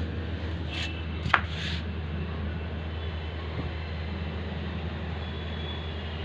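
Handling noise from a phone held against a puppy's fur: short rustling scrapes and one sharp knock about a second and a half in, over a steady low hum.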